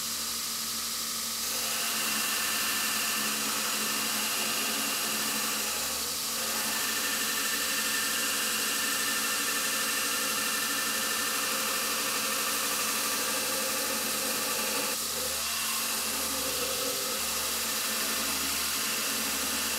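Belt grinder running, its abrasive belt grinding the jaws of forged mild steel tongs to true them up evenly: a steady hiss of belt on steel over the motor's hum. It gets louder about a second and a half in, with brief lulls around six and fifteen seconds.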